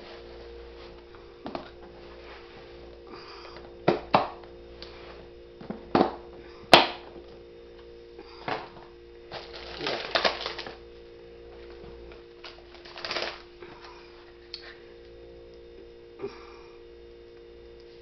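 Frozen food packages being handled: scattered plastic crinkles, knocks and one sharp click, over a steady electrical hum.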